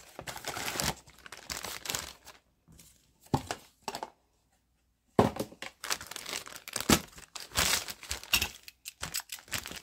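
Cardboard box flaps being opened and a figure's clear plastic bag handled, giving a run of crinkling and rustling. About two seconds in it stops for a short quiet spell, and it resumes with louder, sharper crinkles of the plastic bag from about five seconds in.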